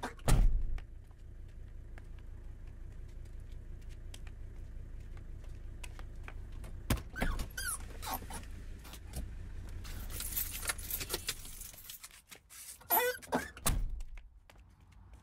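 A heavy thump just after the start. Then a low steady rumble with keys jangling and small handling clicks, and a few short whining sounds near the end.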